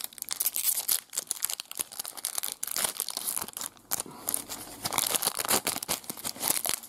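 Foil-wrapped trading card pack being crinkled and torn open by hand: dense crackling and tearing of the thin metallised wrapper throughout.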